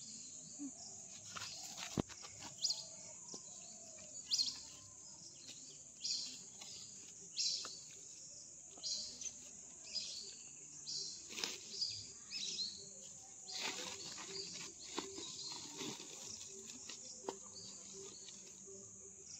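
Steady high insect buzz, with intermittent rustling and crinkling of a woven plastic sack as sprouted palmyra palm nuts are pulled out of it by hand.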